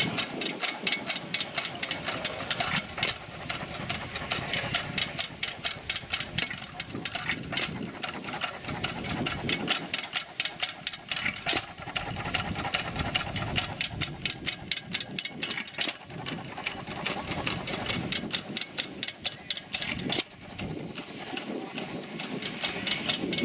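Antique stationary engines running, a rapid, even train of firing beats and mechanical clatter.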